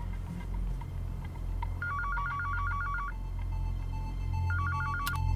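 Telephone ringing with a rapid warbling electronic trill for an incoming call. It rings twice: a ring of just over a second starting about two seconds in, then a shorter one near the end.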